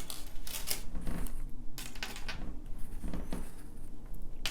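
Scattered light clicks and rustles of small objects being handled and set down on a work surface, several over a few seconds.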